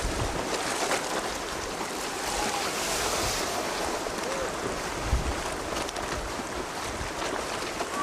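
Steady hiss of wind and choppy sea, with wind buffeting the microphone in low gusts, most strongly about five seconds in.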